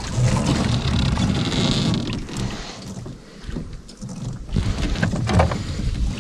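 Wind buffeting the microphone on a small boat on a lake, with water sounds and a few knocks from handling, dropping briefly about halfway through.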